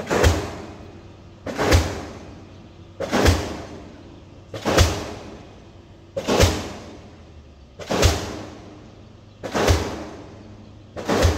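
Pile-driving hammer striking a pile at an even pace, eight heavy blows about one and a half seconds apart, each with a ringing tail that fades before the next blow.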